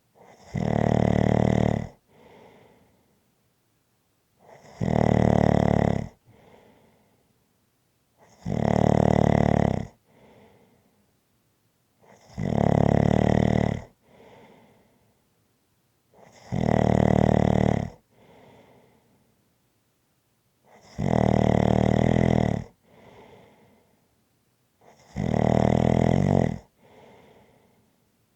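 A person snoring in a slow, even rhythm: seven loud snores, one about every four seconds, each followed by a soft breath and a short pause.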